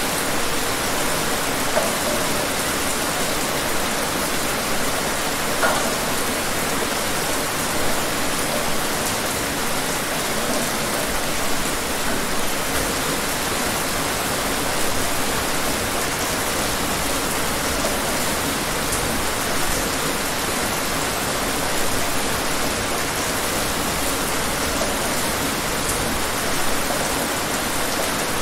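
Steady rain: an even hiss of falling rain, with now and then a slightly louder patter of drops.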